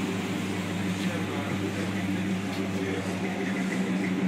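Chevrolet Chevelle's engine idling steadily with an even low hum.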